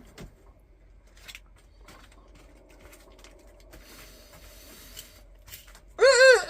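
A rooster begins to crow about six seconds in, its opening notes wavering up and down in pitch. Before that there are only faint background sounds and a few soft clicks.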